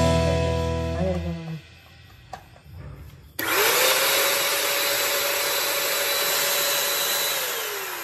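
Guitar background music fades out. A couple of seconds later the vacuum cleaner's motor is switched on: it spins up quickly to a steady whine over rushing air, then near the end it is switched off and the whine falls as the motor winds down.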